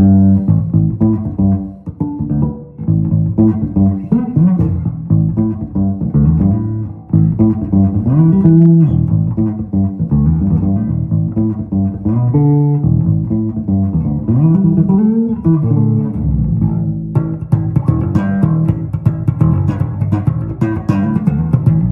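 ESP electric bass guitar played solo: a run of plucked notes with slides up and down in pitch, turning to sharper, clicky percussive attacks in the last few seconds.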